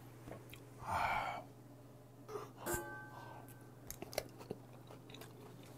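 Faint mouth sounds of a man chewing a bite of pollock-roe rolled omelette, with small wet clicks in the second half. A soft rushing noise comes about a second in, and a click with a short ringing tone comes near the middle.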